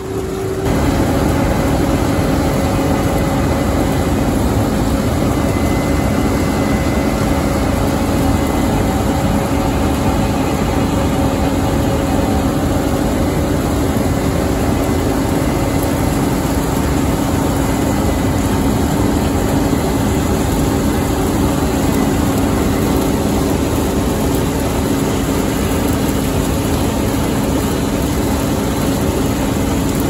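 Case IH 8230 combine running steadily: a loud, even machine drone with a few held tones, which gets louder about half a second in.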